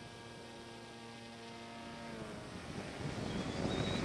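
Electric motor and propeller of a homemade foam RC plane whining steadily in flight, picked up by its onboard camera with wind rushing over the microphone. About two seconds in the whine dips slightly and fades, and from about three seconds the wind rush grows louder.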